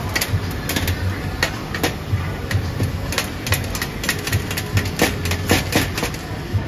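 A steel cleaver chopping a rope of hard candy on a stainless steel counter: quick, sharp chops, irregular at about two to three a second, each blade strike knocking on the metal. A steady low hum runs underneath.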